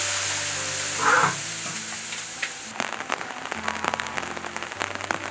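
Braising sauce of small intestine and pickled chillies in a wok, sizzling hard just after water has gone in. About three seconds in it settles to a simmer with many small bubbling pops.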